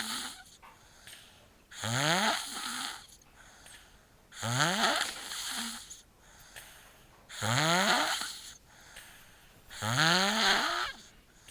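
Snoring: four snores, one about every two and a half seconds, each about a second long with a pitched tone that rises as it goes.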